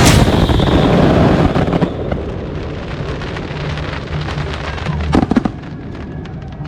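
Fireworks crackling and popping, dense and loud at first and thinning out after about two seconds, with a short cluster of louder bangs about five seconds in.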